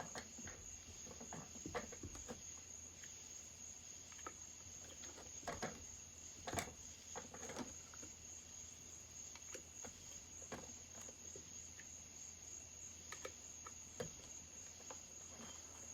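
Faint, irregular clicks and light taps of hand tools and small metal parts being handled while bolts are taken out of a chainsaw during teardown.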